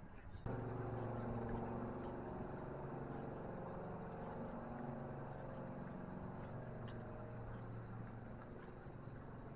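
A steady, pitched mechanical drone, engine-like, cuts in abruptly about half a second in and slowly fades.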